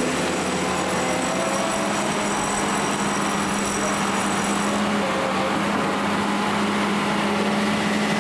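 An engine running steadily with an even hum over a broad rushing noise. A faint high whine stops about five seconds in.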